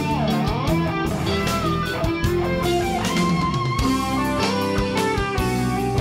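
Background music: a guitar melody over a steady beat.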